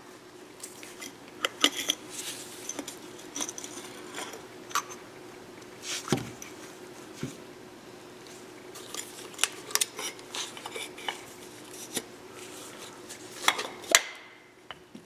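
Metal parts of an electric linear actuator clinking and knocking as it is pulled apart and handled by hand, in scattered sharp clicks with a few louder knocks about six seconds in and near the end.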